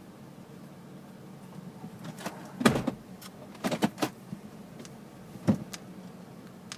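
Irregular knocking from under the dashboard of a 2005 Nissan Armada, over a steady low hum. A quick cluster of knocks comes about two seconds in, a few more follow a second later, and one single knock comes past the five-second mark.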